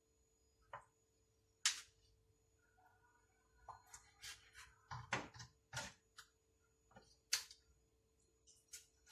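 Kitchen knife slicing raw chicken breast on a wooden cutting board: irregular light taps and knocks of the blade against the board.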